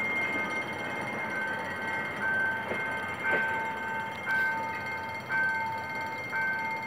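Level-crossing warning signal sounding a repeated electronic tone about once a second, over the running noise of a departing passenger train.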